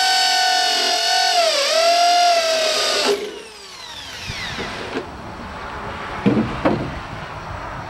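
Corded electric drill whining at full speed as its bit cuts into the steel edge of a truck door, the pitch dipping once under load. About three seconds in the trigger is released and the motor spins down with a falling whine.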